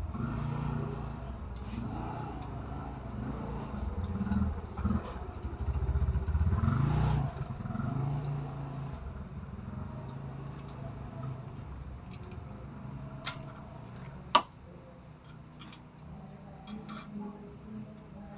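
A motor vehicle engine running in the background, loud for the first nine seconds or so and then fading, while hand tools click and tap against the valve rocker arms of the Mitsubishi Canter's diesel engine during valve clearance adjustment; one sharp metallic click stands out about three-quarters through.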